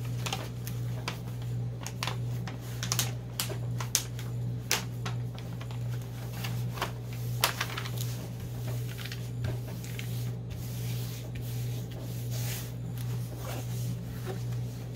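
Hands pressing flat and handling a diamond painting canvas and its plastic cover sheet: paper and plastic crinkling and rustling, with scattered sharp crackles mostly in the first half, over a steady low hum.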